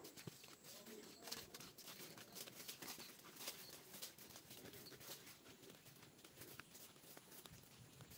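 Near silence: faint outdoor ambience with scattered soft ticks.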